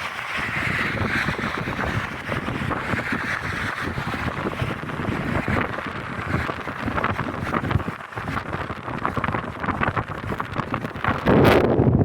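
Train running past, a steady rumbling clatter with wind buffeting the microphone; it becomes suddenly louder near the end.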